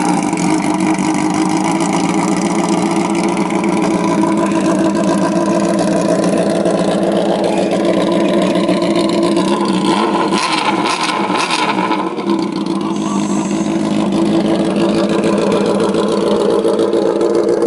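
Honda CBR sportbike's inline-four engine, just fired up and idling loudly and steadily through a Yoshimura full exhaust with its end can removed, practically a straight pipe.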